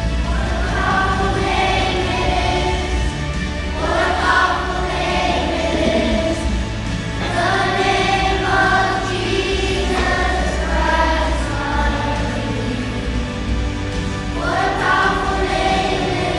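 A choir singing a song with musical accompaniment, in sung phrases that begin about four, seven and fifteen seconds in.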